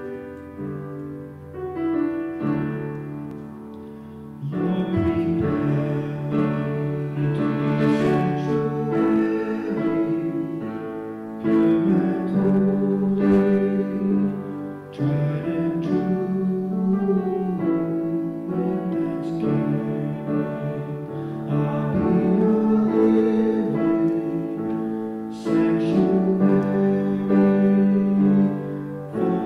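Instrumental keyboard music playing slow chords with long held notes.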